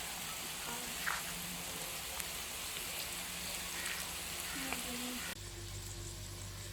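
Boneless chicken sizzling in hot oil in a pan, a steady hiss. About five seconds in the sizzle cuts off abruptly and gives way to a quieter low hum.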